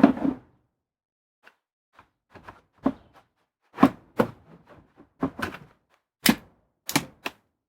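Irregular knocks and clicks, about fifteen in all, of hard parts handled and set in place while a windshield wiper arm is fitted back onto its spindle; the loudest thunk comes right at the start.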